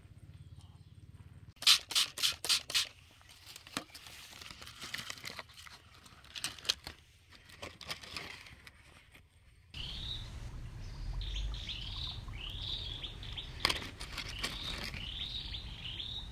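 Small stones clicking together in a hand, with five sharp clicks in quick succession about two seconds in, then softer handling rustles. After an abrupt change about ten seconds in, small birds chirp over and over over a low rumble.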